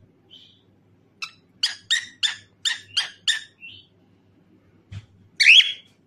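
Cockatiel chirping: a quick run of about eight short, sharp notes over two seconds, then one louder sweeping call near the end.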